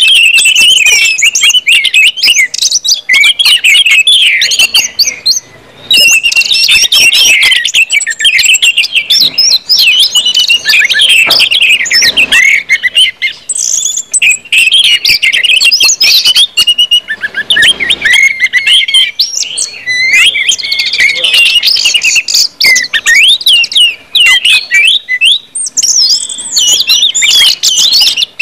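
Orange-headed thrush (anis merah) singing full 'ngeplong' song: a loud, fast run of varied whistled notes and trills, almost unbroken, with one short pause about five and a half seconds in.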